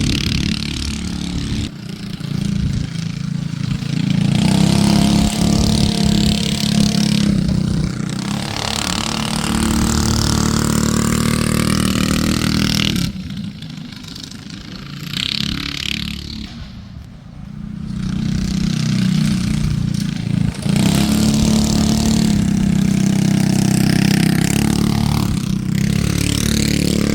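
Small gasoline engine on a Yerf-Dog go-kart running under load with two riders aboard, its pitch rising and falling with the throttle. It grows quieter for a few seconds past the middle, then comes back up loud.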